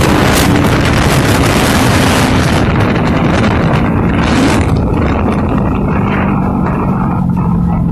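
Kawasaki Z300 parallel-twin engine running on the road under heavy wind rush on the microphone, its pitch slowly dropping as the bike eases off; the wind noise thins out about halfway through. The engine has a freshly rebuilt roller-bearing crankshaft and is running smoothly.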